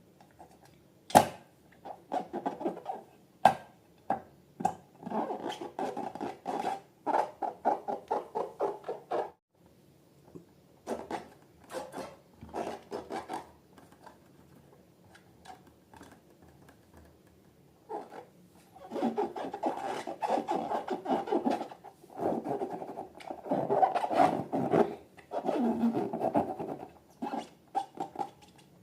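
Slime being worked by hand, giving sticky, crackly squelches in bursts with a long pause in the middle, plus a couple of sharp clicks near the start.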